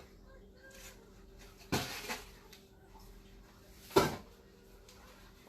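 Kitchen things being moved about on a counter: a short scrape or rustle nearly two seconds in, then a single sharp clunk about four seconds in, over a faint steady hum.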